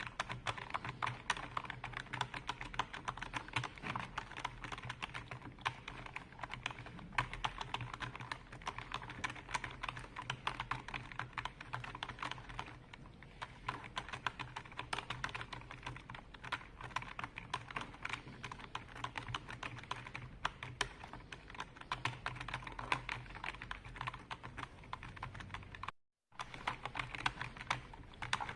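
Continuous fast typing on a computer keyboard: a dense, irregular stream of key clicks. The sound drops out completely for a split second near the end.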